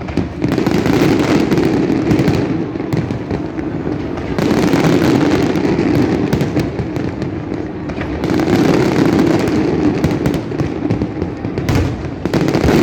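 Fireworks display: a dense barrage of overlapping bursts merging into a continuous rumble, swelling and easing in waves every few seconds.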